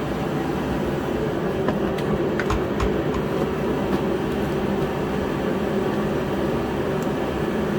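Shop space heater running with a steady drone, with a few light clicks of handling about two to three seconds in and again near the end.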